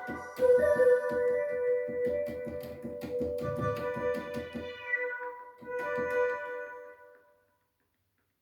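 Yamaha PSR-530 portable keyboard playing a piano-like voice: a quick run of repeated notes over held tones, then a chord, the sound dying away about seven seconds in.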